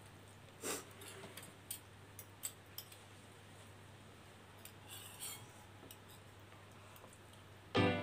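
Faint, scattered clicks and scrapes of metal forks and spoons against plastic bowls as instant noodles are twirled and eaten. Piano music comes in near the end.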